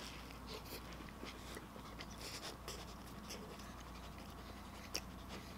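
Faint chewing of a mouthful of sloppy joe, a soft bun with saucy ground beef, made up of small soft clicks and scratchy mouth sounds, with one sharper click near the end.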